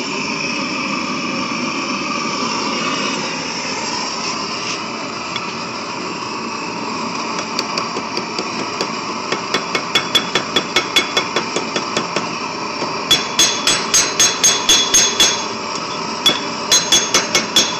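Hand hammer striking hot steel on a small anvil in quick strokes, about four a second, starting about seven seconds in; from about halfway through the blows ring. A steady propane blowtorch hiss runs beneath.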